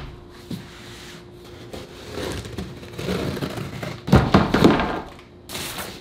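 A large cardboard shipping box being opened by hand and with scissors: rustling and scraping cardboard, then a cluster of loud thumps about four seconds in and a short sharp scrape near the end.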